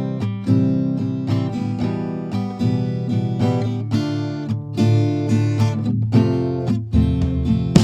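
Background music of plucked acoustic guitar, with notes picked and strummed at a steady pace.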